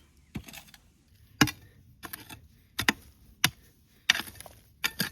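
A metal digging tool striking and scraping the ground: about eight sharp, irregular knocks, with short scrapes between some of them.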